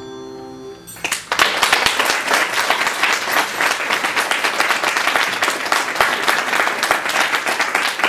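The final chord of a Bohemia grand piano dies away, then audience applause breaks out about a second in and continues.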